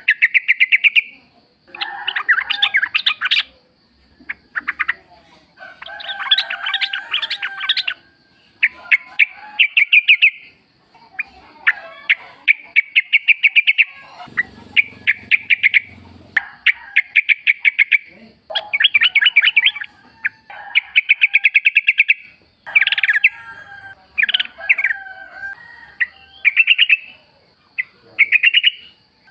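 Yellow-vented bulbuls calling in the wild: burst after burst of quick, bubbly chattering notes, each phrase lasting a second or two, with birds answering one another. A faint, steady high-pitched whine sits under the calls.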